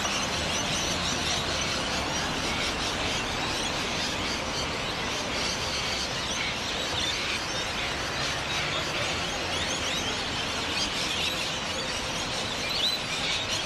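Many birds chattering and chirping at once, in a dense, steady chorus of short high calls, over a low hum of street traffic.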